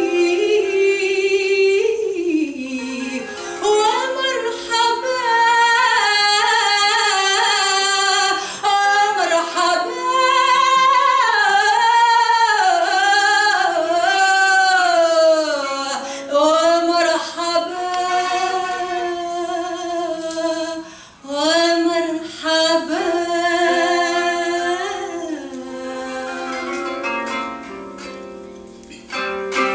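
A woman sings an ornamented, sliding vocal line over a kanonaki (qanun), a plucked zither. Near the end the voice drops away and the kanonaki carries on more quietly.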